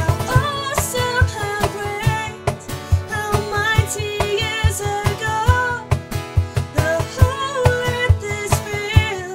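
Acoustic guitar strummed in a steady rhythm under a woman singing a melody, in an acoustic contemporary worship song.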